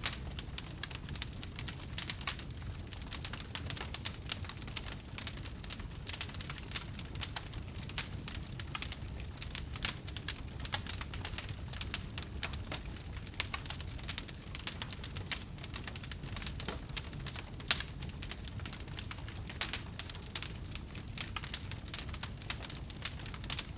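Wood fire crackling, with dense irregular small pops and a few louder snaps over a low rumble of burning.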